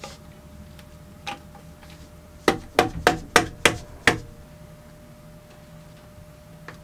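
A new rubber impeller being knocked into a marine diesel's raw-water pump housing: a single knock, then six sharp knocks at about three a second, and one faint knock near the end.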